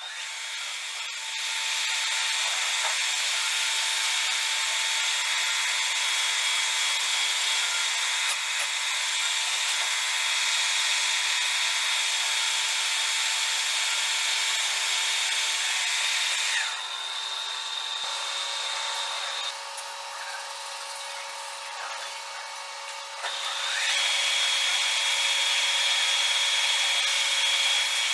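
Metal lathe running with its chuck spinning while a turning tool cuts a metal part: a steady hiss with a few held whining tones. It comes up over the first two seconds, drops for several seconds past the middle, then returns to full level.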